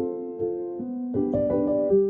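Background piano music, gentle chords played at a slow pace.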